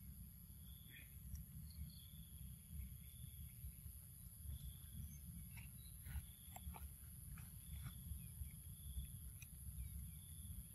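Faint outdoor ambience: insects keep up a steady high whine with short, repeated chirps over a low rumble of wind on the microphone, and a few soft clicks come and go.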